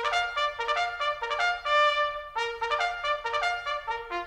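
Intro music: a trumpet playing a quick melody of short, detached notes.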